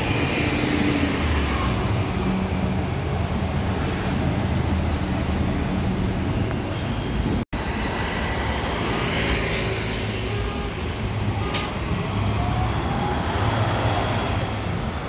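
Street traffic: a city bus engine running close by, with cars and other vehicles passing. The sound drops out for an instant about halfway.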